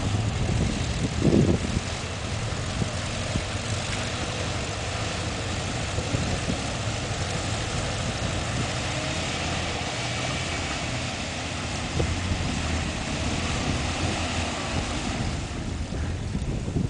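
Volkswagen Schwimmwagen's air-cooled flat-four engine running steadily as it drives the amphibian's propeller through the water, with water washing along the hull.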